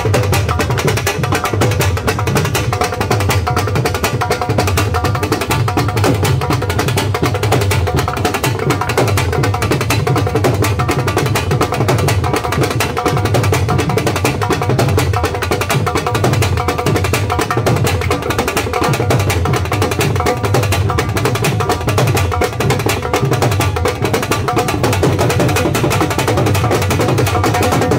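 Dhol drums played together in a fast, unbroken beat, with dense stick strokes over a deep bass pulse.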